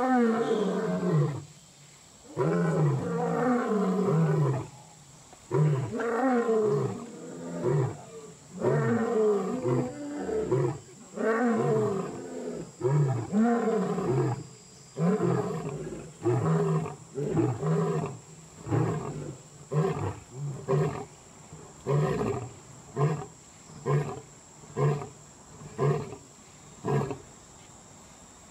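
Lion roaring bout: a string of deep, falling-pitched roars that gives way after the middle to a run of short grunts about one a second, growing shorter toward the end.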